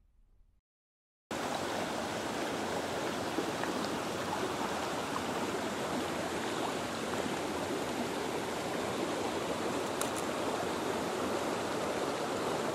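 Near silence, then about a second in, fast-flowing stream water rushing steadily.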